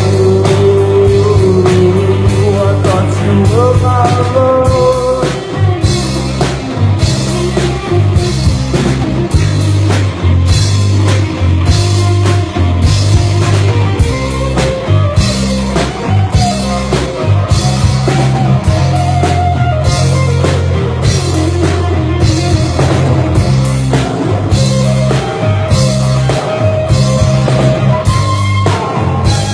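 Rock band playing live: a steady drum-kit beat under bass and electric guitar, with a wavering lead line over the top.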